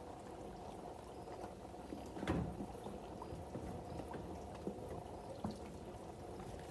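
Water running and trickling into a pigeons' bath, with small drips and clicks and one louder knock about two seconds in.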